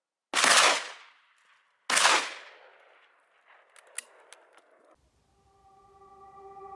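Two gunshots about a second and a half apart, each with a trailing echo, followed by a few faint clicks.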